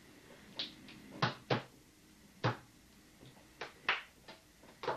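Plastic cups knocked down onto a dresser top during a cups-and-balls trick: about seven sharp, separate taps at irregular intervals.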